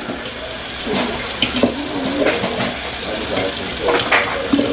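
Kitchen tap running water into a sink, a steady rush with a few brief knocks and clinks over it.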